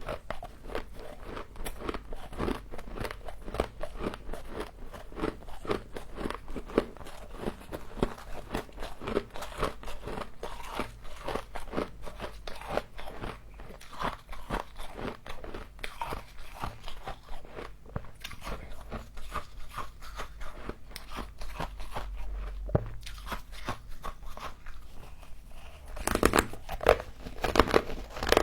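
Close-miked chewing of humidifier frost: dense, rapid crunching that runs on without pause, with a few louder bites near the end.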